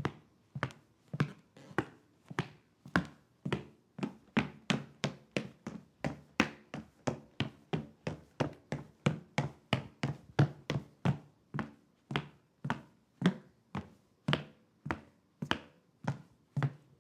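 Footsteps of hard-soled dress shoes on a hardwood floor, each step a sharp heel-and-sole knock. About two steps a second at first, quickening in the middle, then slowing again.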